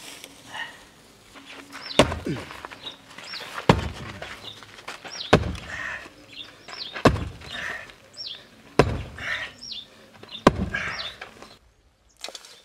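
Six heavy knocks at an even pace, about one every 1.7 seconds, with short high falling chirps between them.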